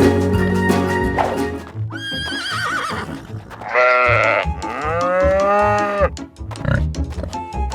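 Background music, then two farm-animal calls: first a short quavering call that falls away, then a longer, lower call lasting about two seconds. The music comes back near the end.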